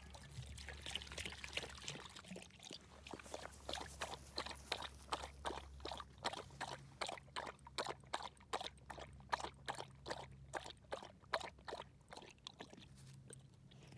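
Water poured from a bottle into a collapsible plastic travel bowl at the start. A black Labrador retriever then laps it up in a steady rhythm of about three to four laps a second, fading near the end.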